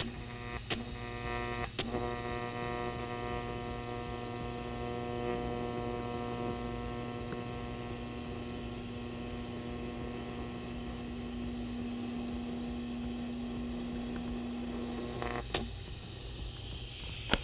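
TIG welding arc buzzing steadily as an oxygen-sensor bung is welded onto a motorcycle exhaust header. Sharp clicks come as the arc strikes in the first two seconds, and the buzz stops about fifteen seconds in, with a couple more clicks after it.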